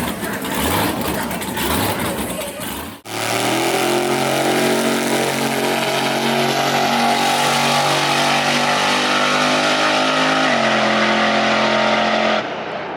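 Drag-race car engine blipped repeatedly. After an abrupt cut, the engine holds at steady high revs for about nine seconds, then drops off suddenly near the end.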